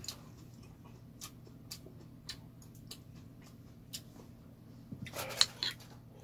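Faint scattered clicks and taps over a low steady hum, then a short run of louder clinks about five seconds in as a metal spoon goes into a stone pot of soup.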